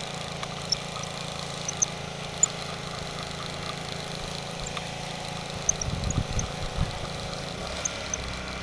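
Closed-face spincast fishing reel being cranked steadily, its gears giving a constant mechanical whir as a hooked bluegill is reeled in, with a few low thumps about six seconds in.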